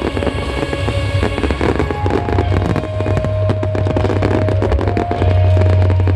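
Fireworks bursting and crackling thickly, many reports overlapping, over music with a deep low rumble beneath.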